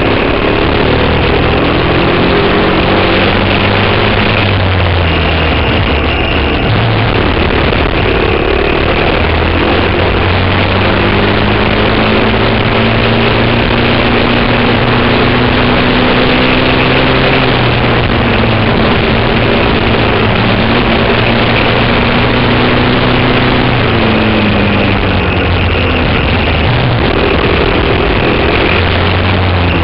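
Briggs & Stratton Animal single-cylinder four-stroke kart engine at racing speed, its pitch climbing slowly and then dropping several times as the revs rise and fall around the lap, over a loud rushing hiss.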